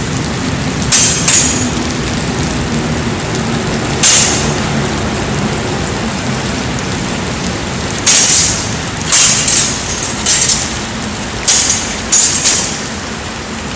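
Longsword blades clashing in sparring: about a dozen sharp, ringing strikes, single or in quick clusters of two or three, most of them in the second half. Under them runs a steady hiss of rain.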